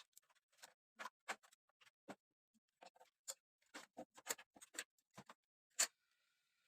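Irregular small clicks and taps, some twenty of them and unevenly spaced, of the kind made by handling small parts and tools during a radio cassette repair. The loudest click comes near the end.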